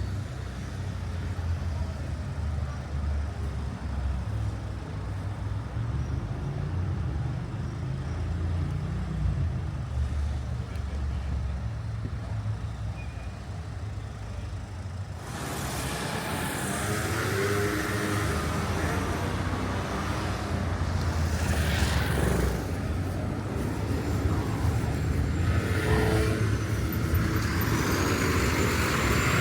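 Deep, steady engine hum. About halfway in it changes suddenly to louder vehicle and traffic noise, with a brief high rising squeal near the end.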